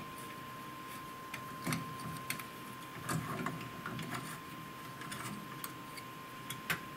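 Irregular small metallic clicks and taps as a CO2 laser head is unscrewed from its bracket with a hex key and lifted off by hand. A faint steady tone runs underneath.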